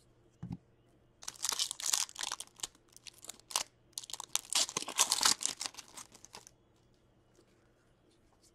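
Hockey trading cards being handled and sorted: a soft thump about half a second in, then two stretches of crisp rustling and sliding of card stock, each a couple of seconds long.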